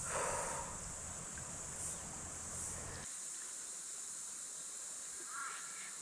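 Steady high-pitched insect chorus, with a couple of short bird calls: a harsh one at the start and another near the end.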